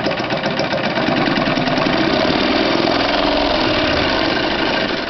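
1959 Singer 185K electric sewing machine running at speed, the needle stitching through a stack of eight or nine fabric layers in a rapid, even clatter.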